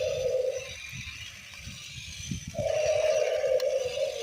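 Toy T-Rex playing its roar sound effect through a small built-in speaker, twice: one roar ends under a second in and a second starts a little after halfway. Wind rumbles on the microphone throughout.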